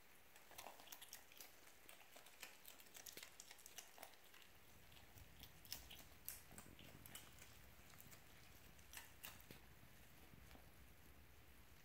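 Fennec fox faintly chewing and crunching superworms and carrot pieces from a stainless steel bowl, heard as many small irregular clicks and crunches.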